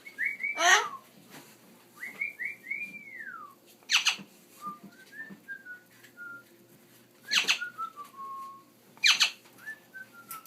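A pet talking bird whistling runs of short notes, several sliding down in pitch, broken four times by a brief harsh call.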